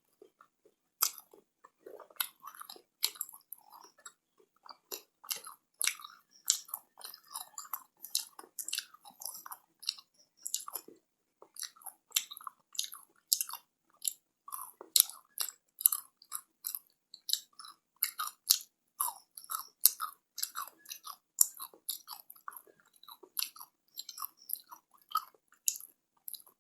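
A person chewing chocolate close to the microphone: a steady run of short, sharp mouth clicks, two or three a second, with a brief pause about eleven seconds in.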